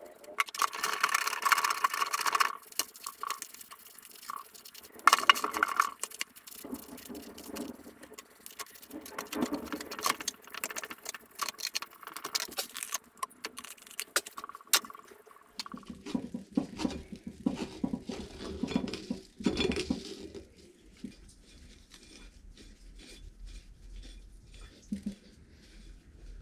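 Hand work on the metal parts of an old hydraulic jack: irregular scraping and rubbing with light clicks and clinks, with a denser, lower stretch of rubbing past the middle.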